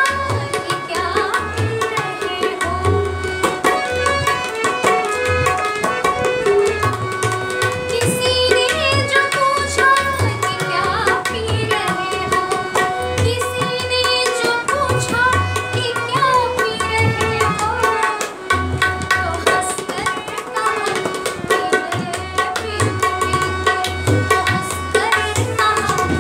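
Tabla played in a steady rhythm under held electronic keyboard chords, with a woman singing over them.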